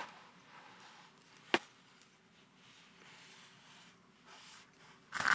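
Cardboard phone box being handled and turned over on a desk: one sharp tap about a second and a half in and a short scuff near the end, otherwise faint room tone.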